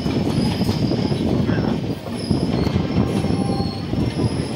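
Train wheels rolling slowly on the rails with a steady rumble. Short, high-pitched wheel squeals come and go several times over it.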